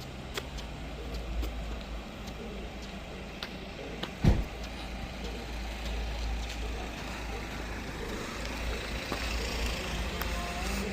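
Low, steady rumble of a car's road and engine noise, with one sharp thump about four seconds in.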